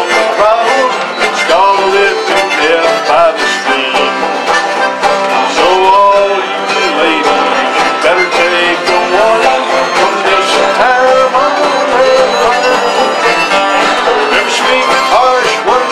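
Old-time acoustic string band playing an instrumental passage: several acoustic guitars strumming chords while a fiddle carries a sliding melody over them.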